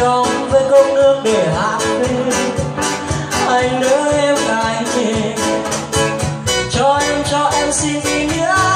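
Live male vocalist singing through a microphone and PA, accompanied by a rhythmically strummed acoustic guitar.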